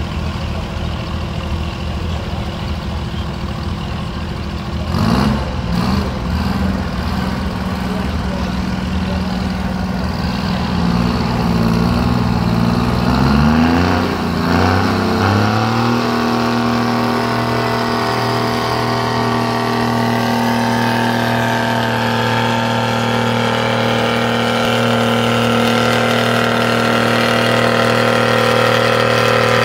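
Vintage Oliver tractor engine at a tractor pull: idling with a short rev about five seconds in, then revving up about halfway and holding a steady, slowly climbing note under load as it drags the weight sled, getting gradually louder.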